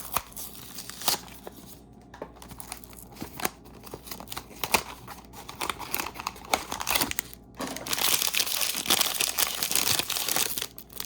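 A mini-figure blind bag being handled and torn open, with scattered clicks and taps at first, then steady dense crinkling of the wrapper from about eight seconds in until just before the end.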